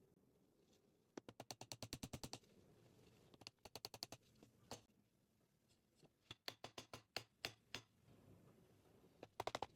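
Runs of quick, light clicks, about ten a second, coming in several bursts with pauses between them.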